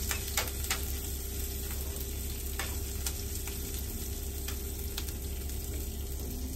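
Chopped onion, garlic and ginger sizzling as they fry in a stainless steel skillet, stirred with a metal spoon that clicks against the pan a few times. They are being browned, not burnt.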